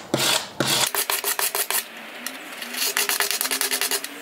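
Stiff hand brush scrubbing a steel bicycle chain, cleaning off blackened residue after a rust-removal soak. Back-and-forth strokes come slowly at first, then quick rapid strokes about a second in, with a short break near the middle.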